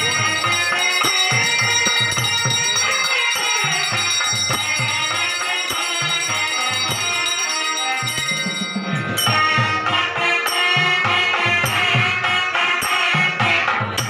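Traditional Indian devotional music with percussion. About nine seconds in it changes to a brighter passage with a sharper, regular beat.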